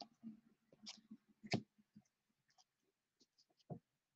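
Faint, scattered clicks of thick chromium trading cards being flipped through by hand, one card sliding and snapping against the next; the sharpest click comes about a second and a half in.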